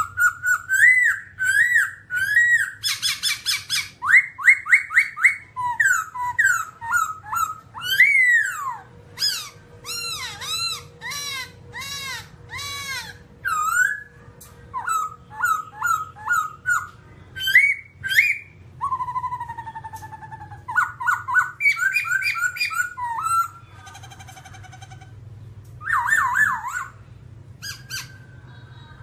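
Black-throated laughingthrush singing a long, varied song: loud whistled phrases of sweeping, rising and falling notes and fast runs of repeated notes, broken by brief pauses.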